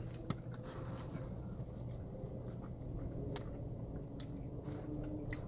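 Two men chewing mouthfuls of bacon burger, with a few sharp mouth clicks, over a low steady background hum.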